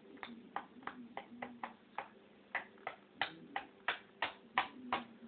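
African grey parrot making a run of sharp clicks, about three a second, getting louder from about halfway through.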